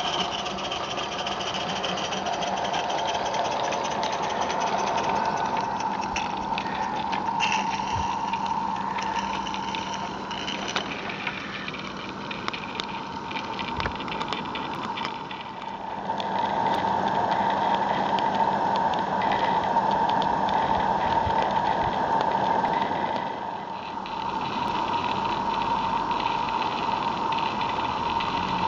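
A small live-steam garden-railway locomotive of Merlin Locomotive Works build running with a freight train: steady steam exhaust together with the rattle of wheels on the track. The level dips briefly twice.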